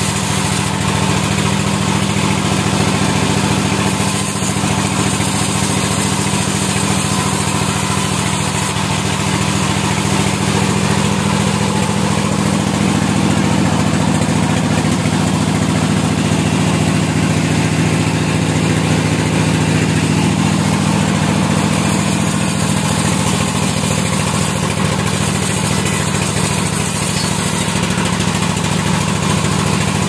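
Large vertical band sawmill running steadily: an unbroken, even machine drone from the saw and its drive.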